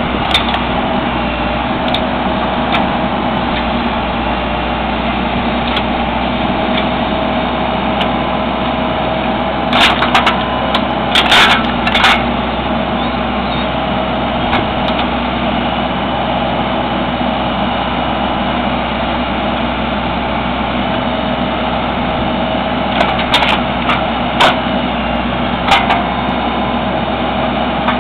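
Backhoe engine running steadily to drive a hydraulic wood splitter, with clusters of sharp cracks and snaps about ten seconds in and again near the end as logs split.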